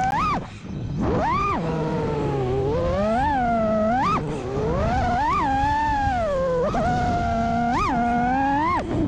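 FPV quadcopter's brushless motors and propellers whining, the pitch swooping sharply up and falling back again and again as the throttle is punched and released, about half a dozen times. The motors briefly cut out about half a second in.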